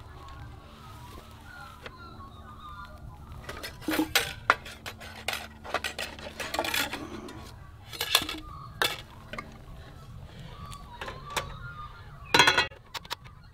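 Cookware and utensils clattering as camp cooking gear is rummaged through and handled, in irregular knocks and clinks, with the loudest clank about twelve seconds in as a frying pan is brought onto a portable gas camp stove.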